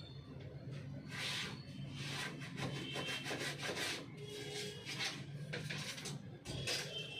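Irregular rubbing and scraping of plastic parts and a circuit board being handled as a replacement motherboard is fitted into an Epson EB-520 projector, with a few light clicks over a low steady hum.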